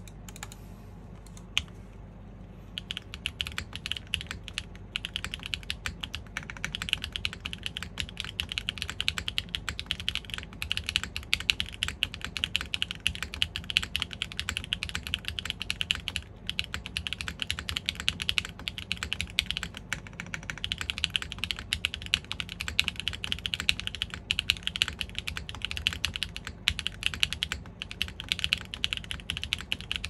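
Continuous typing on a custom mechanical keyboard: a polycarbonate GAF 910 PC case, O-ring (gummy o-ring) mount, aluminium plate, factory-lubed Strawberry Wine V2 switches and GMK keycaps, with Sarokeys BCP switches on the spacebar, backspace, enter and shift. A single click comes about a second and a half in, and the typing starts about three seconds in.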